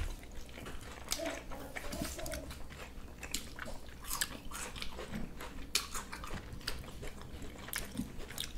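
Close-up eating sounds of khinkali dumplings: quiet chewing and biting with irregular wet mouth clicks and small crunches.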